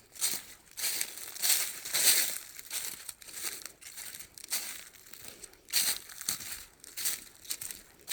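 A hiker's footsteps crunching on a forest trail, a short crunch with each step at a walking pace of about two steps a second.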